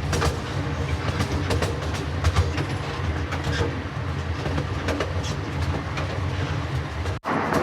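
Miniature railroad train cars rolling along the track, a steady low rumble with frequent clicks of the wheels over rail joints. The sound cuts out abruptly for a moment near the end.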